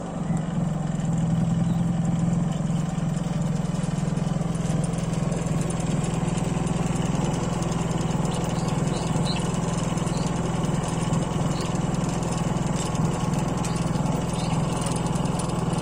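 A 3 kW portable generator's engine running steadily at constant speed.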